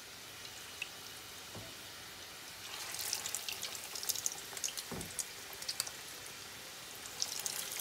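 Egg-battered fish fillets deep-frying in a saucepan of hot oil: a faint hiss, then sizzling and crackling that grows louder about three seconds in as the next fillets go into the oil. A dull knock about five seconds in.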